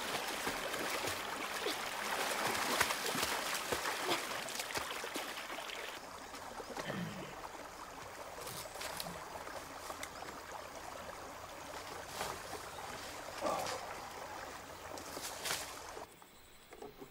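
Water splashing as a person swims and thrashes about in a shallow rocky pool. About six seconds in, it drops to a quieter flowing-stream sound with a few faint clicks.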